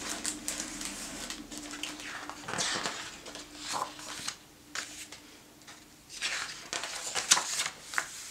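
Pages of a hardcover picture book being turned and smoothed flat by hand: a run of paper swishes and soft rustles, with a few sharper flicks near the end.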